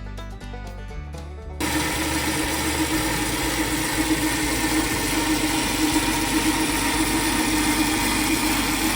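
Light background music for the first second and a half, then a lathe comes in suddenly and runs steadily with a constant hum, turning a Delrin bar down to its finished outside diameter.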